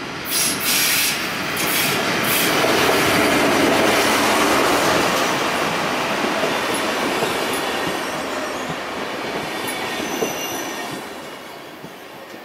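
A locomotive-hauled SBB InterCity train pulls into the station along the platform, its wheels and coaches rumbling on the rails. The sound builds to a peak and then dies away as the train slows, with a few short high wheel or brake squeals near the end.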